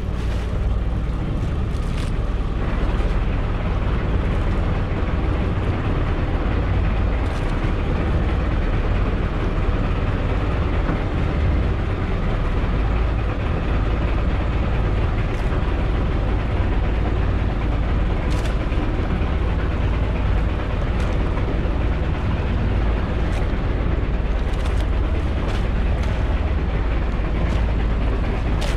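Engine of an outrigger fishing boat running steadily while the boat is underway, a constant low drone with a few faint clicks.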